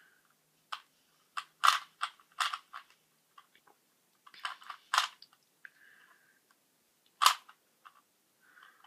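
Rubik's cube layers being twisted by hand: irregular plastic clicks and clacks, a few in quick runs, with gaps between.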